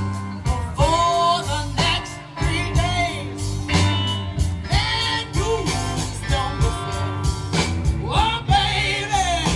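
Background music: a song with a singing voice over guitar.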